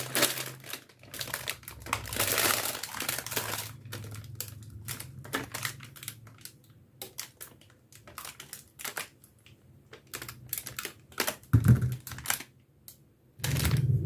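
Small air-compressor hose fittings being handled: a string of light, irregular clicks and taps, with a stretch of rustling about two to four seconds in.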